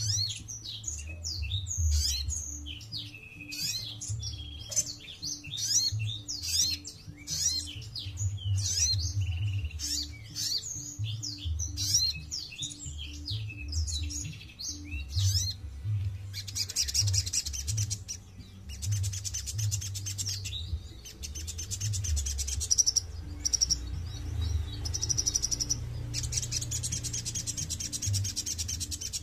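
Sogon (olive-backed sunbird) singing. For about the first half it gives a fast run of quick, sweeping high chirps. After that it switches to long, rapid, high trills in bursts of two to three seconds.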